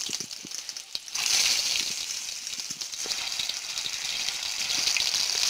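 Whole boiled, peeled small potatoes sizzling in hot oil in a frying pan as they go in; a steady, loud sizzle that swells about a second in.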